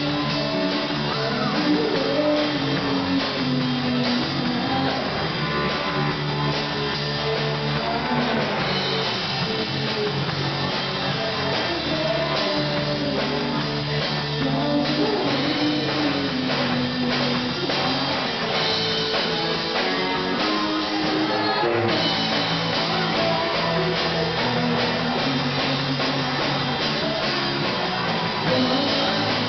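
Live band playing rock music: a woman singing lead over electric guitars and a drum kit.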